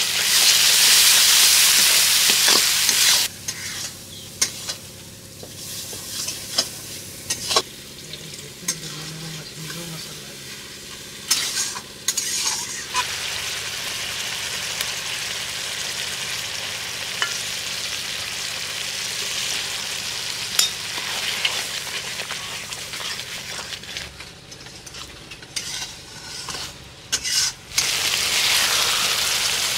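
Spiced curry masala frying in an open steel kadai while it is stirred with a spatula. It sizzles loudly for the first three seconds, then simmers more quietly with scattered scrapes and clicks. The sizzle rises again near the end as the gravy bubbles.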